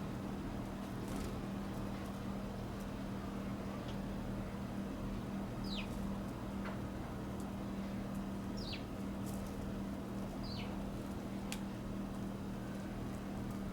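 A small bird gives three short, sharply falling call notes a couple of seconds apart, over a steady low hum.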